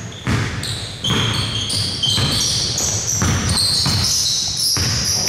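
A basketball game on an indoor court: the ball bouncing on the floor with several sharp thuds, and sneakers squeaking in short, high chirps.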